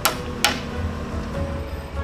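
Two sharp hammer blows, about half a second apart, on a wooden brace set against a timber post, over background music.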